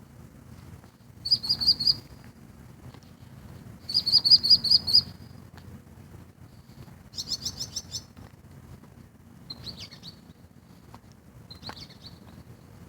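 Birds calling in rapid runs of high, repeated notes: three bursts of about a second each, then two shorter, fainter calls near the end.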